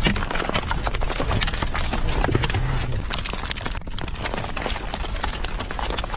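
Lapilli and small volcanic bombs raining down and striking the ground and gear, a dense, rapid patter of clicks and knocks over steady low noise.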